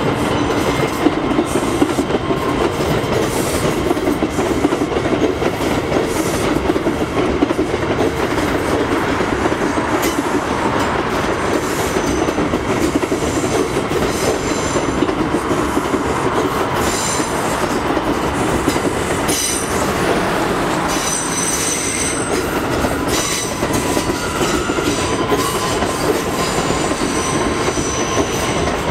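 A New York City Subway R179 train runs past on an elevated concrete viaduct, making a steady loud rumble of wheels on rail with some clickety-clack. In the second half, high-pitched wheel squeal comes in as the train takes the curve.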